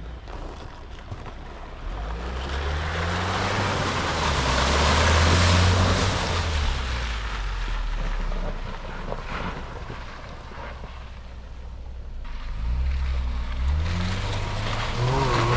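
Range Rover Sport driving through a deep muddy puddle, its engine revs rising and falling while the tyres splash and churn through the water. A second rise in engine revs comes near the end.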